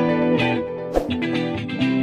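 Instrumental background music led by plucked guitar.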